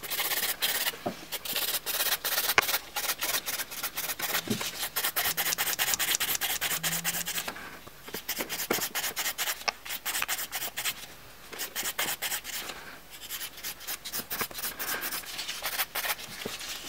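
Hand nail file rasping back and forth in quick strokes across a gel-coated fingernail, smoothing the whole surface. The filing pauses briefly about eight seconds in and twice more around eleven to thirteen seconds.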